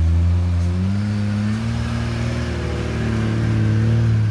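Jeep Grand Cherokee's engine pulling under load on the trail, its pitch rising about a second in and then holding steady with small wavers as it drives past close by.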